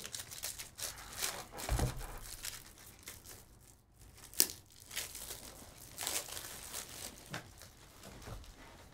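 Foil wrapper of a Panini Prizm Football hobby pack crinkling and tearing as it is opened, then the cards inside sliding and rubbing against each other as they are handled. One sharp snap about four and a half seconds in.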